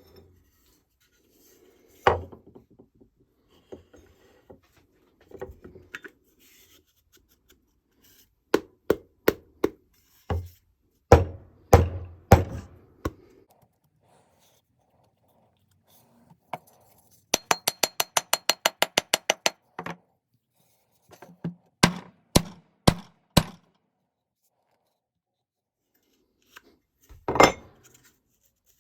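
Hand-tool work on a hatchet: a series of sharp knocks and taps, with a fast even run of about twenty clicks in the middle and a short scraping rasp near the end.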